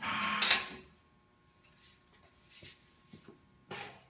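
A short, loud clatter from the Turbobend CNC sheet-metal folder and the sheet being folded, dying away within the first second. A few faint clicks and knocks follow, with a sharper knock near the end, as the bent strip is handled.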